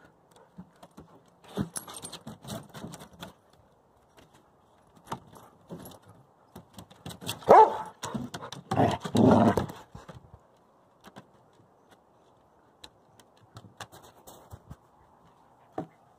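Wolfdogs and a Great Pyrenees mix playing: metal collar tags jingle and clink on and off, with a loud burst of barking around the middle.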